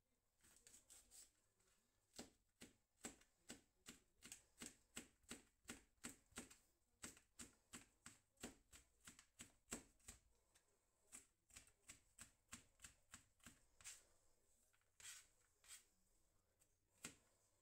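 Chef's knife chopping red chili peppers on a plastic cutting board: steady knocks about two a second, thinning to a few scattered knocks near the end.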